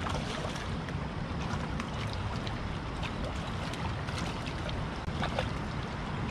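A hooked tilapia splashing and thrashing at the water's surface as it is pulled in on a hand pole, with small irregular splashes over a steady background hiss.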